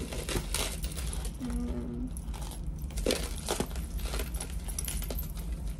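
Metal costume jewelry (chains, charm bracelets and charms) clinking and jingling as pieces are handled and sorted, a scattered run of light clicks.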